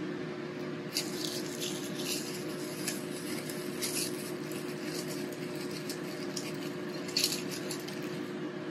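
Steady room hum with one constant tone, and a few light clicks and rustles of a plastic food lid and dishes being handled on a meal tray.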